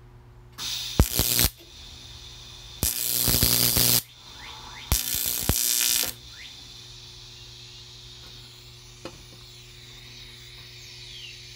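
TIG welder arc striking aluminum pipe to lay tack welds: three separate bursts of crackling hiss, each about a second long.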